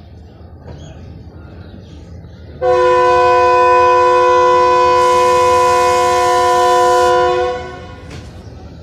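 Diesel locomotive's air horn sounding one long, steady blast of several tones together, lasting about five seconds and starting a little over two seconds in.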